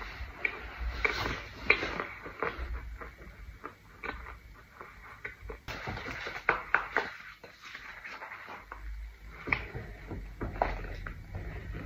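Close-up chewing and crunching of a pressed white powder brick and loose scented powder: many short, irregular crunches and clicks. A plastic tub scoops through loose powder in a foil tray.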